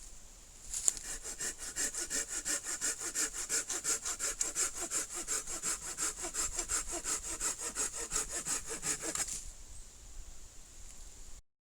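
Silky Gomboy Curve 300 folding saw cutting through firewood in quick, even back-and-forth strokes, about four a second, stopping about two seconds before the end.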